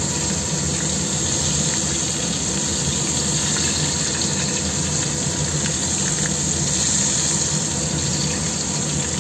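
Hot oil sizzling steadily as fish-paste-stuffed green chillies deep-fry in a small pot.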